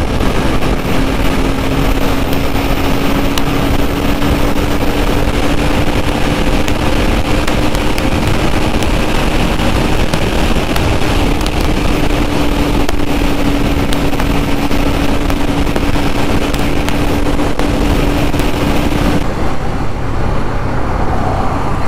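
Motorcycle running at highway speed from the rider's seat, its steady engine note climbing slowly as it accelerates under loud wind and road noise. About 19 seconds in the engine note drops away and the wind hiss eases.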